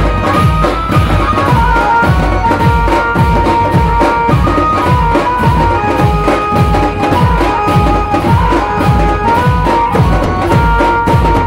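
Dhol drums playing a fast, loud beat, with a melody of long held notes over it.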